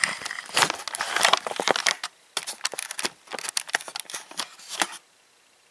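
Irregular clicks, taps and rustling of a camera being handled and repositioned, stopping abruptly about five seconds in.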